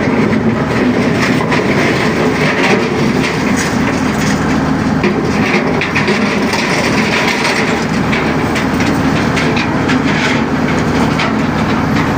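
Heavy diesel construction machine running steadily under load, with frequent metallic clanks and knocks throughout.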